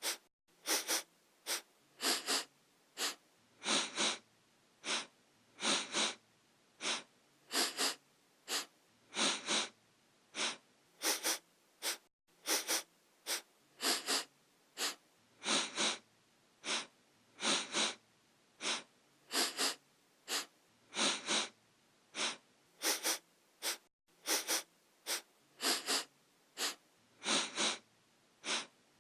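A person sniffing through the nose: short, sharp sniffs, often in quick pairs, repeating steadily at about two a second.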